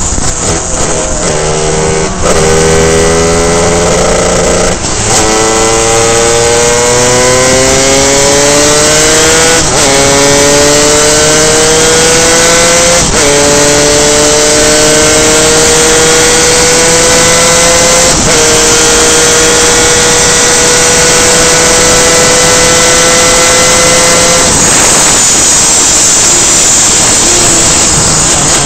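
Superkart's two-stroke engine at racing speed, its pitch climbing through the gears with five quick upshifts, each a sudden drop in pitch. Near the end the engine note fades as the throttle comes off. There is a loud rushing noise throughout.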